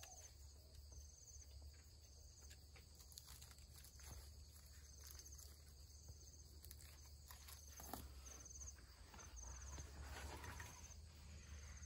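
Near silence with faint insect chirping: short high trills repeating every second or so, over a low rumble, with a few soft clicks.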